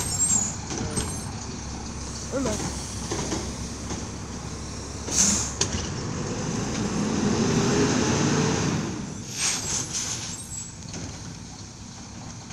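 Garbage truck engine running, swelling louder a few seconds in and then easing off, with a short hiss about five seconds in and a few sharp clanks near the end.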